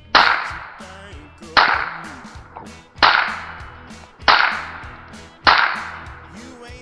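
Five gunshots fired at a steady pace, about one every second and a half, each a sharp crack trailing off into a short echo, with music playing quietly underneath.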